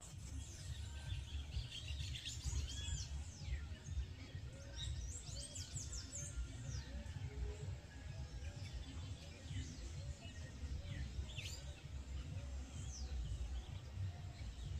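Several wild birds chirping and calling, with quick high chirps and downward-sweeping notes, and a lower note repeating steadily through the middle, over a steady low outdoor rumble.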